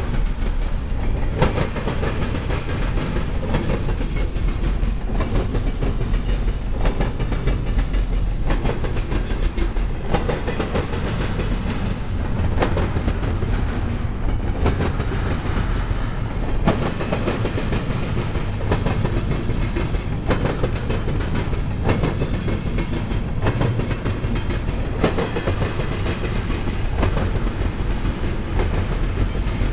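Double-stack intermodal container train rolling past: the steel wheels of the loaded well cars rumble steadily and clatter over the track diamonds in a constant run of sharp, irregular clacks.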